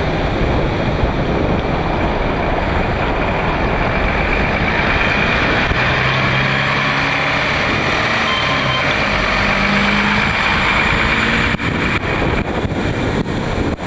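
Steady traffic and tyre noise on a wet city street. From about five seconds in, the engine of a Mercedes-Benz Citaro city bus running close alongside adds a low drone. Near the end the sound briefly cuts out a few times.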